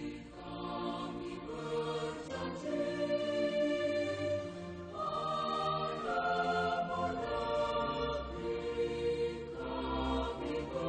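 Background music of slow, sustained chords that change about every second or two.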